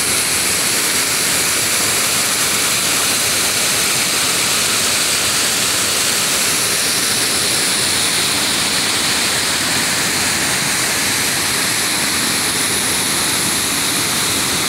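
Loud, steady rush of a rocky mountain river's water tumbling over stones, with no let-up.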